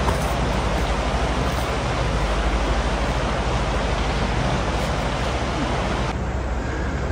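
Motorcycle engine running with a low, steady note under a steady rushing noise; the upper part of the rushing drops off about six seconds in.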